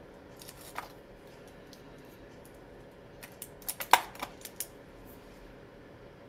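Small clicks and taps of a black pen and paper card pieces being handled on a craft table while hedgehog eyes are marked: one click about a second in, then a quick run of sharp taps around four seconds in, one much louder than the rest.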